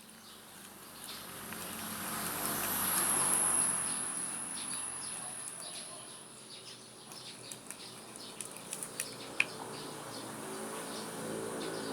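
Crickets chirring steadily at a high pitch, with a swell of noise about three seconds in and scattered light clicks and taps later on.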